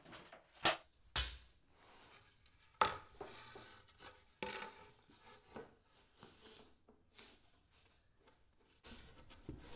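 Plywood boat panels and a plywood chine strip being handled: a few sharp wooden knocks in the first three seconds, then lighter taps and rubbing as the pieces are shifted and lined up.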